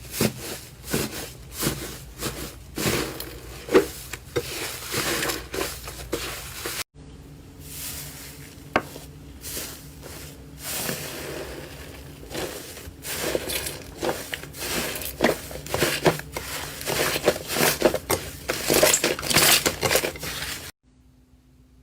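Slime being squeezed and pressed by hand, giving dense crackling and popping with many quick clicks. The sound breaks off sharply about seven seconds in and resumes, and stops abruptly near the end.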